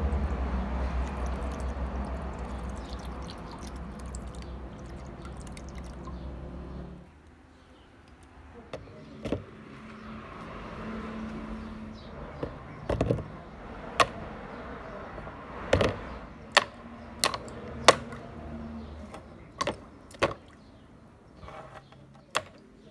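Liquid pouring steadily into a plastic tub for about seven seconds, stopping abruptly. Then a scattered series of sharp clinks and knocks as rusty metal parts are set down into the tub of liquid.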